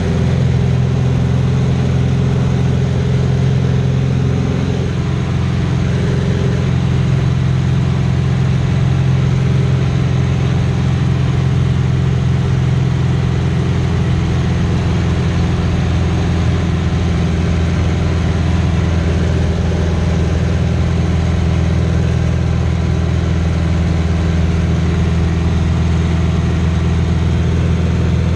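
Aerobatic biplane's piston engine and propeller droning steadily as heard inside the cockpit, with rushing air over it. The tone shifts a little about five seconds in and again around thirteen seconds, as power changes through the manoeuvres.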